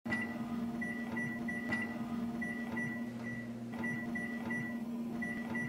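Microwave oven keypad beeping as its buttons are pressed over and over: a string of a dozen or so short, high beeps at uneven spacing. A steady low hum runs under them.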